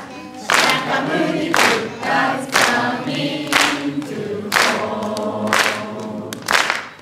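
A group of voices singing together, with a sharp beat about once a second.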